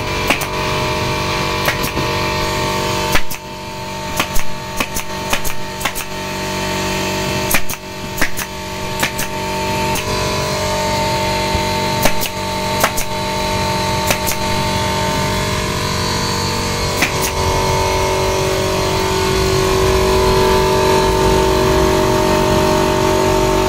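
Portable air compressor running with a steady hum while a pneumatic upholstery stapler fires sharp shots into a seat frame, singly and in quick pairs, about twenty times over the first seventeen seconds. The compressor hum grows louder near the end.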